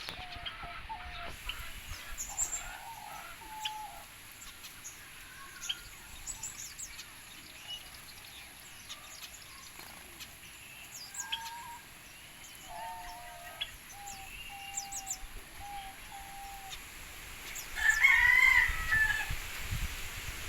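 Birds calling: short, repeated low notes and scattered high chirps. About eighteen seconds in, a rooster crows loudly, for about a second and a half.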